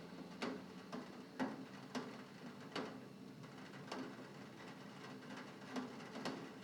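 Raindrops tapping on window glass: scattered sharp ticks at uneven intervals over a soft, steady hiss.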